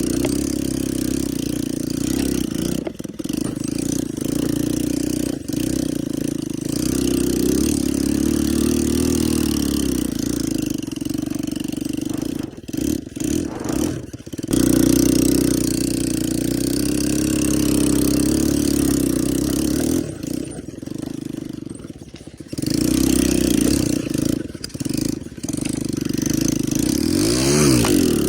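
ATV engine running under throttle, its pitch rising and falling as it is revved, with brief drops in level near the middle and a quick dip and climb in revs near the end.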